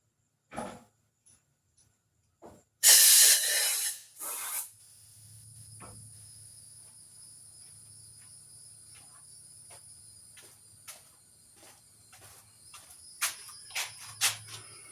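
Two blasts of blown air clearing chips out of a freshly drilled ramrod hole in a walnut gun stock, a long hiss about three seconds in and a short one after it. Then crickets chirp steadily over a low hum, with light clicks of the wood being handled.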